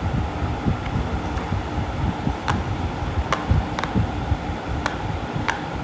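Silicone pop-it fidget toy bubbles being pressed through, about six sharp little pops spread over the second half, over a run of low thumps from the toy being handled.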